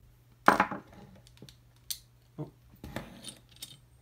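A screwdriver and small metal parts knocking on a wooden workbench: a sharp knock about half a second in, then a few lighter clicks and a short clatter near the end as the metal cassette-deck chassis is picked up and handled.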